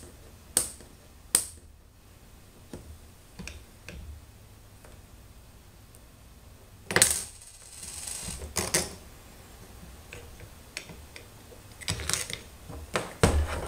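Small metal hardware for the CNC gantry being handled on a tabletop: a few sharp clicks and clinks in the first few seconds as a thin precision shim is worked off the table, then louder scraping and knocking handling sounds about seven seconds in and again near the end as the gantry plate is turned over.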